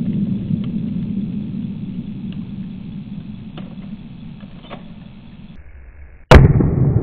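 A low rumble fades away over several seconds, then a single sharp rifle shot cracks near the end, followed by a low rolling rumble.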